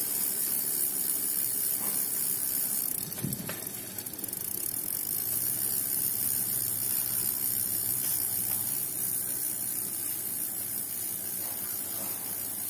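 7-speed threaded bicycle freewheel ticking as the rear wheel coasts, its pawls clicking in a fast, even stream. This is the stock, unmodified freewheel, whose ratchet is quiet rather than a loud buzz.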